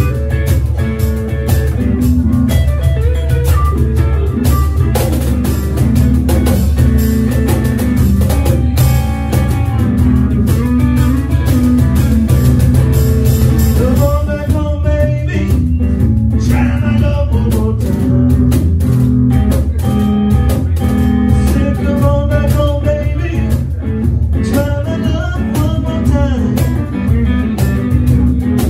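Live blues band playing: hollow-body electric guitar over a cajón beat, with a male voice singing from about halfway in.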